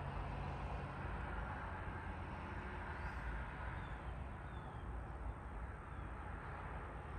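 Rural morning outdoor ambience: a steady low background rumble with a few faint, short bird chirps between about three and six seconds in.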